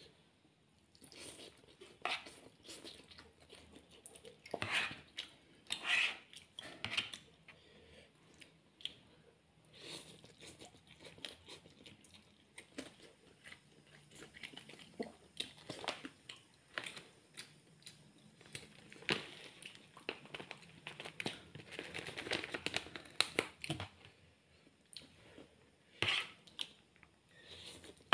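Close-miked eating of fried instant noodles: repeated wet chewing and slurping as forkfuls of noodles are sucked in, in irregular bursts.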